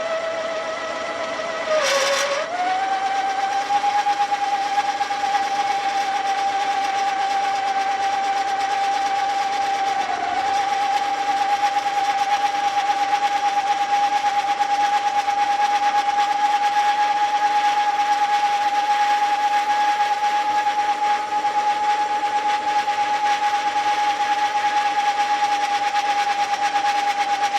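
TV-16 benchtop lathe running at low speed while knurling a small steel nut, a steady motor whine. About two seconds in there is a sharp knock and the whine dips in pitch as the knurl bites, then recovers; it dips slightly again about ten seconds in.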